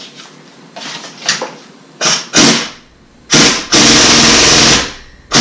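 Pneumatic impact wrench hammering: a few short blips about two seconds in, then a burst of about a second, and another starting near the end. It is driving the screw of a ball joint press to push a new wheel stud into the wheel hub.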